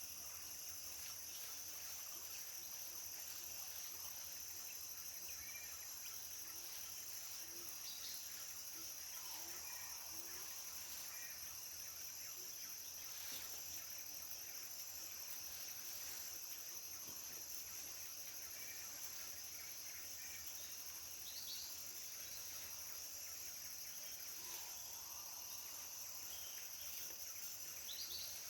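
Rainforest ambience: a steady high-pitched insect drone, with scattered short, faint bird calls over it.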